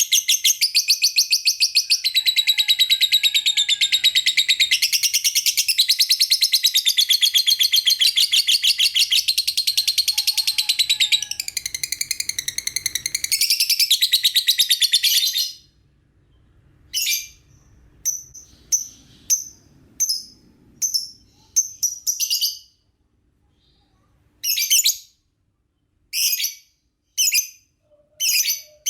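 Lovebird chattering in one long, rapid, high-pitched trill for about fifteen seconds, then a series of short separate bursts of chirps with pauses between them.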